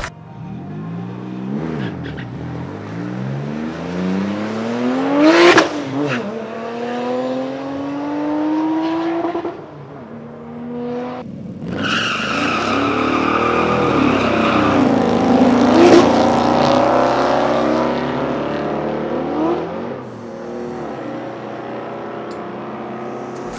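Cars accelerating hard past with the engine pitch climbing again and again through the gears. It is loudest as one goes by about five seconds in and another about sixteen seconds in. A high squealing tone, typical of tire squeal, runs from about twelve to fifteen seconds in.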